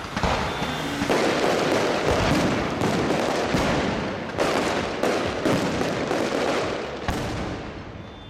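Aerial firework shells bursting one after another at about one a second, each bang trailing off in a rolling echo; the bangs stop about seven seconds in and the rumble dies away.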